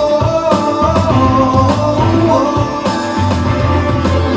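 Film soundtrack music played through a Sony HT-RT40 soundbar system at full volume: a melodic lead over a strong, steady bass, with no distortion heard even at maximum volume.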